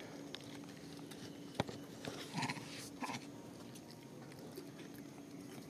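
A baby macaque close to the microphone: a sharp click about one and a half seconds in, then two brief soft calls around two and a half and three seconds in, over a faint steady hum.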